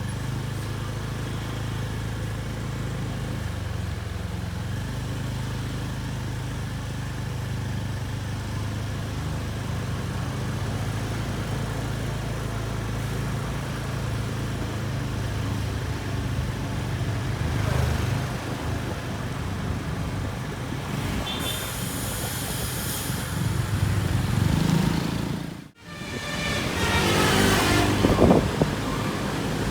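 Road vehicle engines running steadily amid traffic noise, with a short hiss about two-thirds of the way in. Near the end, after a brief break in the sound, a vehicle passes louder, its engine pitch shifting.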